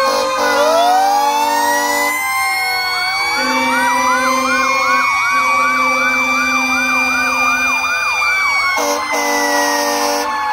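Fire engine sirens sounding together as the trucks pass: several long wails rising and falling slowly, overlapped from about three seconds in by a fast yelp that repeats about three times a second. Long steady blasts of a truck air horn come in and out underneath, one more near the end.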